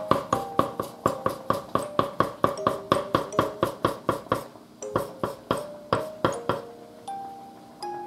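Kitchen knife chopping shiso leaves on a wooden cutting board: quick, even chops about five a second that thin out near the end. Background music with a simple melody plays throughout.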